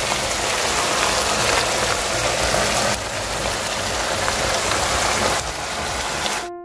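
Pork ribs and vegetables sizzling in a pan of soy-based braising sauce: a steady crackling hiss that cuts off suddenly near the end.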